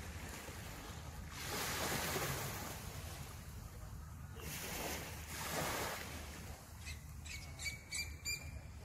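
Small waves washing up on a sandy beach twice, each a swish that swells and fades over about a second and a half. Near the end a bird gives a quick run of short calls.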